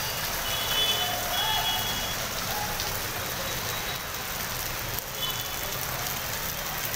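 Steady hiss of rain and floodwater running across a road.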